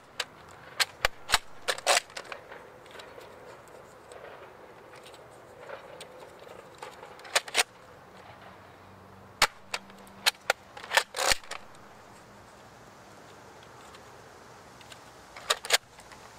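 Nerf Elite Barrel Break IX-2 spring-powered double-barrel dart blaster being fired and worked by hand: sharp pops and plastic clicks in clusters, a burst of them in the first two seconds, another between about seven and eleven seconds, and a last pair near the end.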